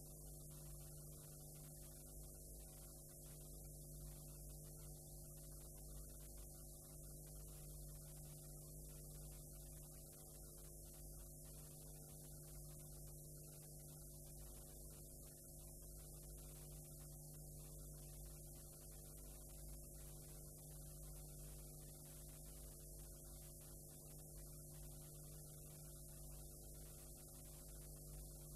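Near silence: faint steady electrical hum and hiss from blank videotape playback, with a faint tone pulsing on and off about once a second.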